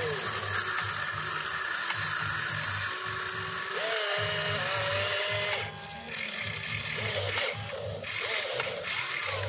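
Electric motors of a model RC excavator whining as the boom and bucket move, the pitch rising and falling in repeated sweeps over a steady high whine, with a short lull about six seconds in.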